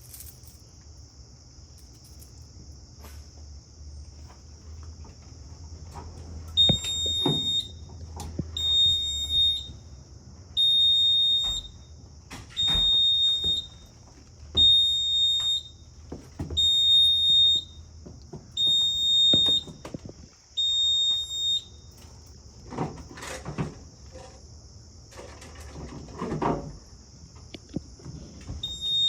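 Fire alarm sounder going off during an alarm system test: a high, piercing beep about a second long, repeating every two seconds. It sounds eight times, stops for several seconds with a few knocks and a rattle, then starts again near the end.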